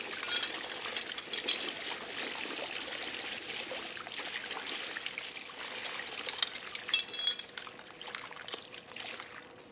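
Water spraying out of a leak and splashing onto the surrounding water, with a few sharp metal clinks about seven seconds in. Near the end the spray quietens as the clamp is pressed down over the leak.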